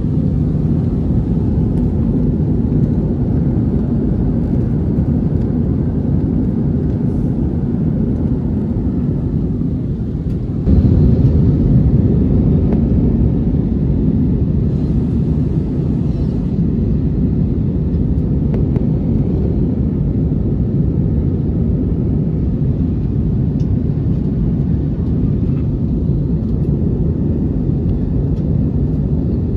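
Airliner cabin noise during the climb after takeoff: a steady, low rumble of engines and airflow heard from a window seat, stepping up a little louder about ten seconds in.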